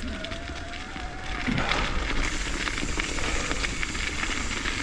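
Mountain bike rolling along a gravel trail: tyres crunching and crackling over the stones and the bike rattling, louder from about a second and a half in, when a thin high squeal stops.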